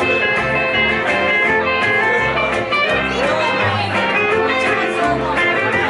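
Live country band playing: electric guitar, upright bass and acoustic guitar, the bass plucking a line of low notes that change about every half second under the guitars.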